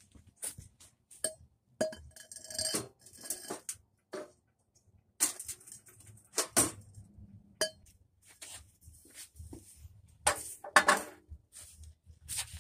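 Steel pipe knocking and clinking against a grill's tubular steel leg frame as it is fitted into place: a series of separate metallic clinks with short ringing, the loudest cluster about ten seconds in.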